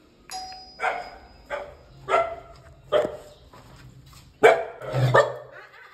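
An electric doorbell sounds briefly, then a pet dog barks about six times in separate barks, the loudest near the end.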